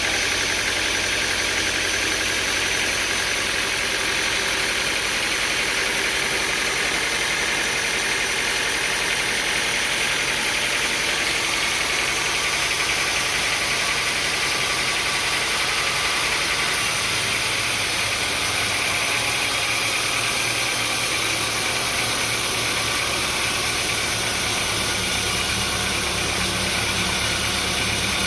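An engine running steadily, its low hum changing pitch about two-thirds of the way through.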